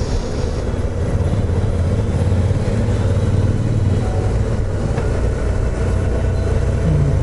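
Motorcycles cruising in a group at a steady speed: a low, steady engine drone mixed with wind rush, heard from aboard a Honda Gold Wing GL1800.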